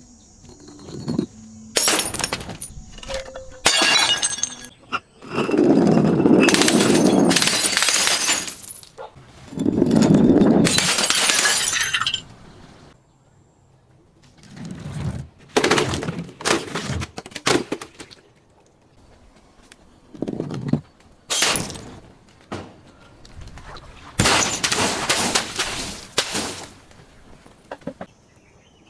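Glass bottles being smashed and crushed: a series of sharp breaks, with several longer stretches of crunching, grinding broken glass lasting two to three seconds each.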